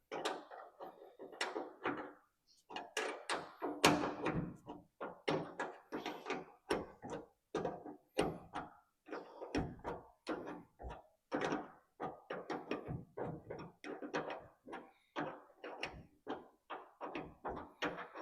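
Hand-tool work on an ear corn picker's chain drive: a run of short, sharp metallic knocks and clicks, about two or three a second and unevenly spaced.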